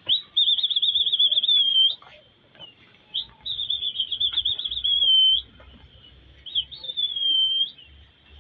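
Shrill whistle blown in three long blasts, each warbling rapidly, then sliding slightly down and ending with a short upward flick.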